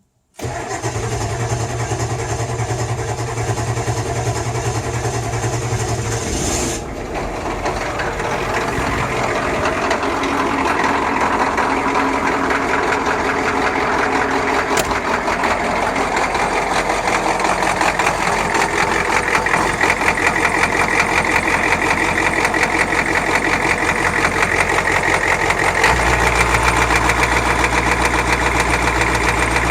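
Ford 7.3 IDI V8 diesel cold-starting on freshly replaced glow plugs: it starts abruptly about half a second in and runs on with a steady, dense diesel clatter. The sound dips briefly about seven seconds in, and the low end shifts near the end.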